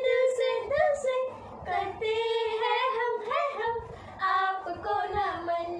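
Two young girls singing a song together, holding some notes steadily between shorter phrases.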